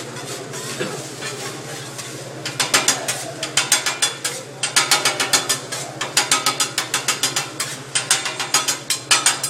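Metal hibachi spatula clacking rapidly against the griddle: quick runs of sharp metallic clicks, several a second, starting about two and a half seconds in.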